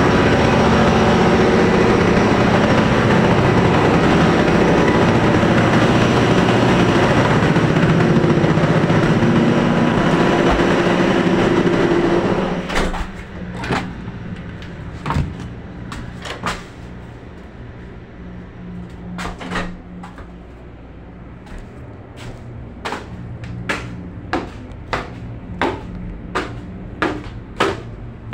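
Chinese-built ship's engine running loudly and steadily in its engine room. About twelve seconds in, the noise drops suddenly to a low hum, and a series of sharp knocks follows, coming about once a second near the end.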